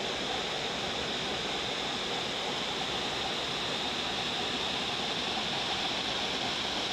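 Hot-spring waterfall pouring over rocks into a river pool, with river rapids running nearby: a steady, even rush of water.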